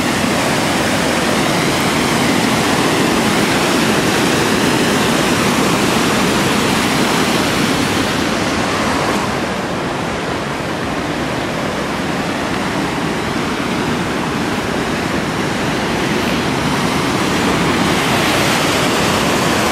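River Calder running high and fast over a stone weir: a steady, loud rush of white water, easing slightly in the middle before building again. The river is swollen after recent flooding.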